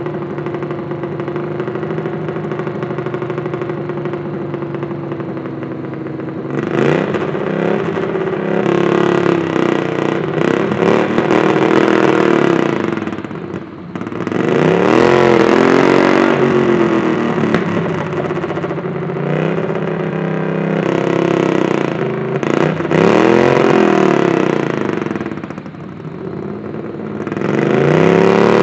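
Garden tractor pulling engine running steadily, then revved hard several times, each rev rising and falling in pitch. The engine is loaded up and being revved to clear it.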